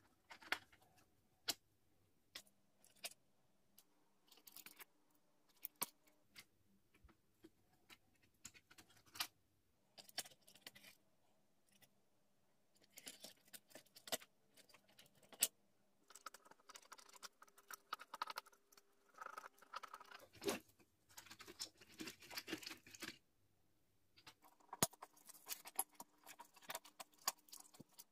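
Rusted diecast model car being taken apart with pliers: sharp irregular clicks, short scrapes and the rattle of small metal and plastic parts, coming in scattered bursts.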